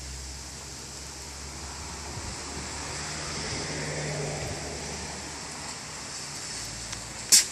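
A doe sneezing once, a single sharp, loud nasal blast near the end, as she tries to clear a fly or bug from her nostril. Before it, a vehicle passes, swelling and fading about halfway through.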